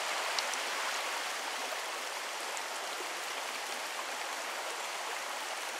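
Rushing water of a stream cascading over rocks, a steady even hiss.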